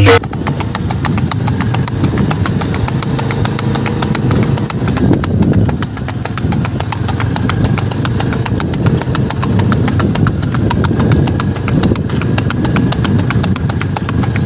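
A ridden horse's hooves clip-clopping quickly and evenly on a paved road at a fast, high-stepping gait, with a low engine hum running underneath.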